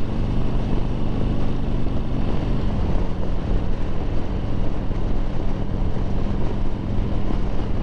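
2009 Harley-Davidson Sportster 1200 Low's air-cooled V-twin engine running steadily while the bike is ridden along a street. The engine note steps down slightly about three seconds in.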